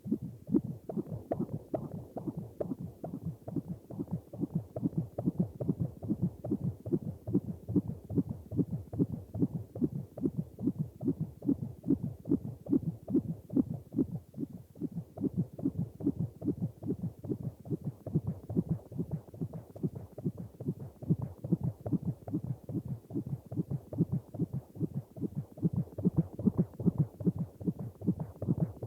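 Heartbeat sound effect: steady, regular low-pitched thumping beats at an even pace.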